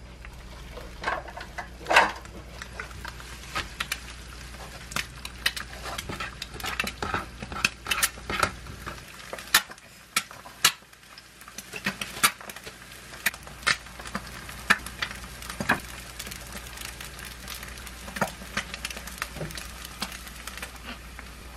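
Eggs sizzling in a nonstick frying pan, then many sharp clicks and taps of chopsticks and utensils against ceramic dishes while a rice bowl is plated.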